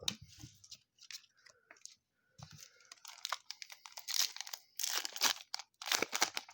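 Trading cards being handled and shuffled, crinkling and rustling in a run of short bursts that grow louder and denser over the second half.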